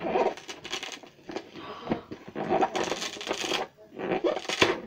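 Packaging of a make-your-own card kit rustling and crackling as it is opened by hand. It comes in several bursts with small clicks, the longest about halfway through, and a sharp tap near the end.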